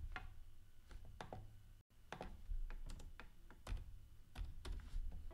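Typing on a computer keyboard: irregular keystrokes in short runs, with the sound cutting out for an instant about two seconds in.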